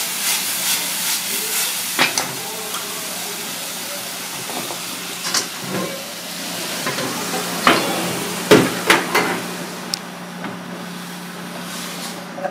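Mushrooms sizzling in a hot cast-iron skillet over a gas burner, tossed and stirred, with several sharp knocks and clatters of the pan and utensils. The sizzle fades about ten seconds in, and a steady low hum runs underneath throughout.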